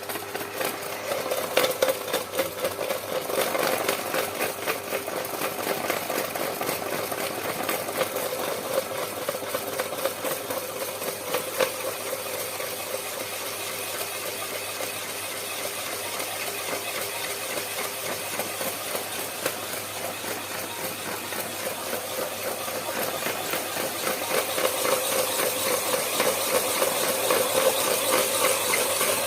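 Homemade belt-driven meat and peanut grinder powered by an electric motor, running with no load: a steady hum with constant rattling, growing somewhat louder near the end. The pulley is slightly bent and the drive not precisely aligned.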